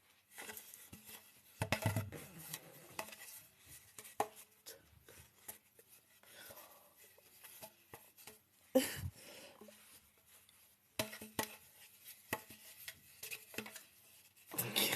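Scattered clicks and knocks of small objects being handled, with two louder thumps, just before 2 s and about 9 s in.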